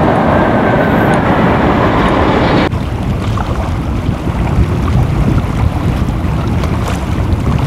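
Wind buffeting the microphone over the engine and road or water noise of a moving vehicle. The sound changes abruptly about a third of the way in, dropping to a quieter, lower rumble.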